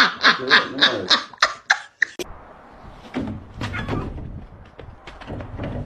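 A person laughing hard in quick rhythmic bursts, about four a second, which cut off suddenly about two seconds in. After that comes a quieter stretch of indistinct low rustling and soft knocks.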